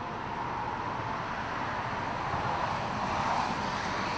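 Steady road traffic noise that swells as a vehicle passes about three seconds in.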